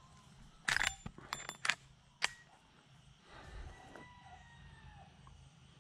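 A quick run of sharp metallic clacks and clinks from handling the 1886 lever-action rifle and its brass cartridges, some with a brief ring, in the first two and a half seconds, then only faint handling noise.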